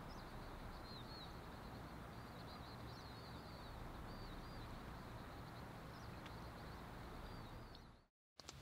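Faint chirping of small birds, many short high calls scattered over a steady background hiss; it fades out about eight seconds in.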